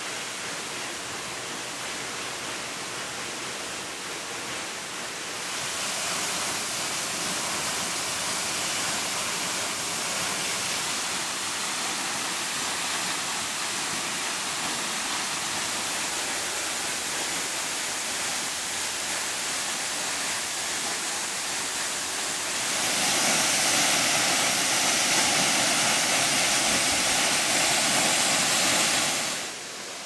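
A tall waterfall plunging into its pool: a steady rush of falling water, running strongly after a week of heavy rain. It gets louder about five seconds in, and louder again for the last several seconds, then drops back just before the end.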